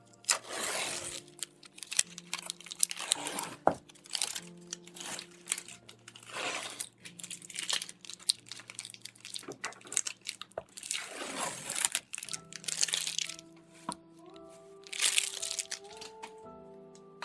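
Masking tape being peeled off the edges of a watercolour painting in several long rips, each about half a second to a second, over soft background music with held notes.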